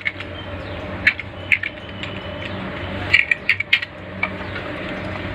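Scattered sharp clicks of a computer mouse and keyboard, about seven, spread irregularly with a quick cluster about three seconds in, over a low steady hum.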